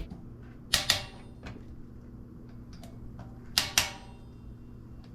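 Two pairs of sharp, bright clicks of bike parts or tools being handled, about 0.8 s and 3.7 s in, over a faint steady hum.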